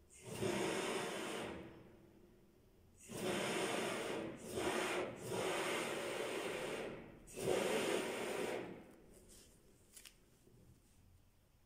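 Aerosol can of polyurethane foam spraying through a hose into holes under loose parquet, in five hissing bursts of about one to two seconds each with short pauses between, followed by a few faint clicks.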